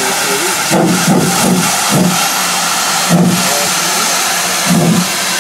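Steam tank locomotive pulling away slowly, steam hissing steadily from its open cylinder drain cocks, with slow exhaust chuffs about once a second.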